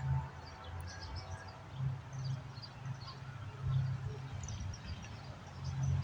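Small birds chirping, with short scattered calls, over a low rumble that swells and fades every second or two.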